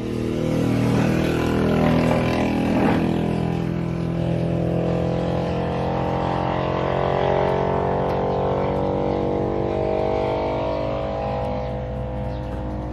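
Domestic cat purring loudly and steadily right at the microphone, a continuous motor-like rumble.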